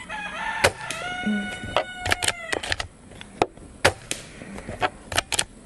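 Gamo Arrow .22 PCP air rifle being loaded and fired: a run of sharp clicks and snaps from the bolt and the quiet shots.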